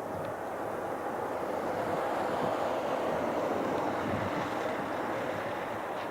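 Passing jet airliner: a steady rushing engine noise that builds a little through the middle and eases off near the end.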